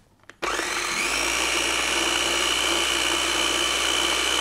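Small electric food processor switched on about half a second in, its motor spinning up with a brief rising whine and then running at a steady high whine as it blends gelled blueberry confit into a smooth purée.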